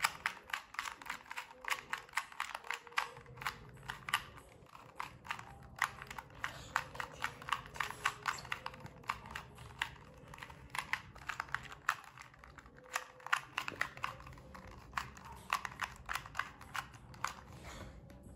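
2×2 Rubik's cube being turned fast in a timed speed solve: an irregular run of small plastic clicks, several a second, as the layers snap round.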